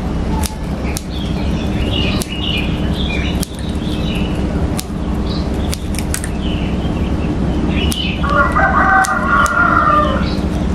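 Chickens calling, with a rooster crowing from about eight to ten seconds in. Underneath are a steady low hum and scattered sharp clicks.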